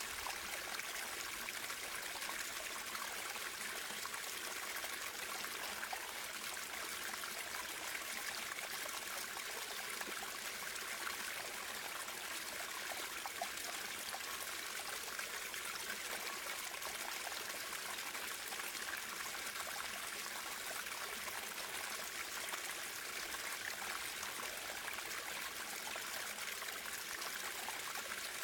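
Running water of a stream, flowing and trickling at an even, steady level, with a bright hiss and little low rumble.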